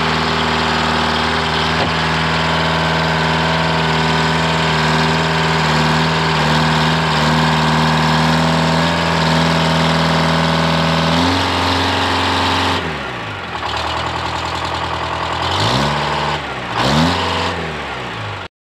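Dynahoe 200-4 backhoe-loader's Detroit Diesel 4-71 two-stroke diesel running steadily under load while its front bucket pushes dirt. In the last few seconds the engine speed falls and rises again several times, then the sound cuts off suddenly.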